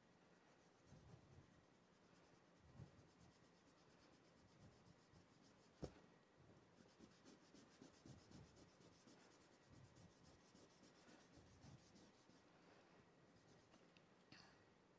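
Faint strokes of charcoal and erasers scratching and rubbing on drawing paper, with a run of quick back-and-forth rubbing in the middle and one sharp tap about six seconds in.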